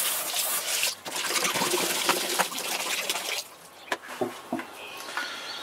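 Water from a hose spray nozzle running into an emptied can of head-gasket sealer to rinse out the last of it, splashing into a bucket of water. The water stops about three and a half seconds in, followed by a few light knocks.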